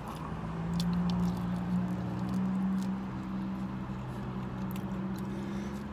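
Close-up chewing of a rotisserie chicken wing with the mouth closed: small wet clicks and smacks over a steady low hum.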